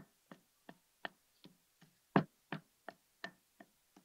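Quick footsteps on a hard floor, about three steps a second, evenly paced.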